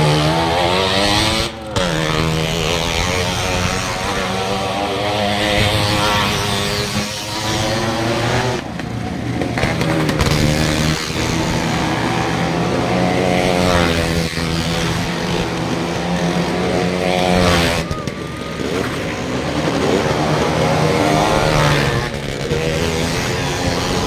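Motor engines running and revving, their pitch rising and falling again and again over a steady low hum.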